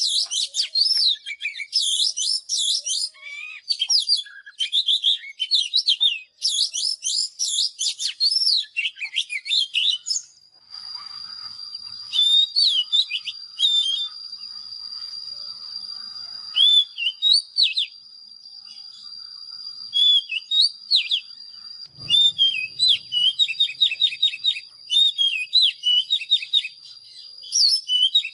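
Oriental magpie-robin singing: rapid, varied whistled phrases with quick pitch sweeps, dense and loud for about the first ten seconds. After that a steady high whistle-like tone runs underneath, while shorter song phrases and trills come and go over it.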